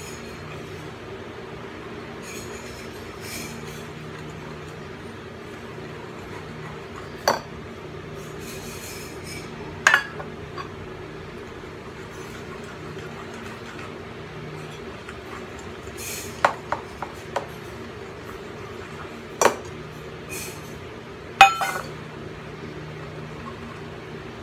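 A wire whisk beating eggs and seasoning in a ceramic bowl: soft scraping, with about seven sharp clinks of the metal against the bowl, over a steady background hum.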